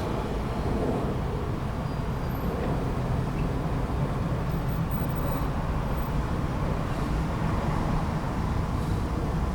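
Steady low rumble of traffic at a busy intersection: cars and trucks running and passing.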